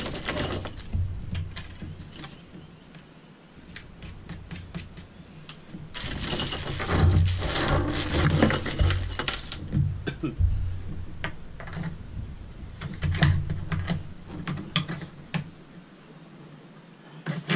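Hands rummaging in a clear plastic bag of bolts and washers: crinkling plastic and small metal hardware clicking and clinking. The crinkling is densest from about six to nine and a half seconds in.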